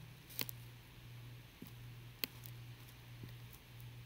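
A few sparse, sharp computer mouse clicks over a steady low hum.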